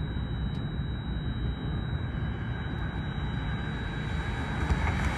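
Steady low outdoor rumble, like wind on the microphone and passing traffic, with a faint thin high whine; it gets a little louder and brighter near the end.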